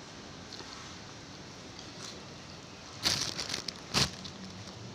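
A person slurping and eating instant noodles. There is a noisy slurp about three seconds in, followed by a shorter one a second later.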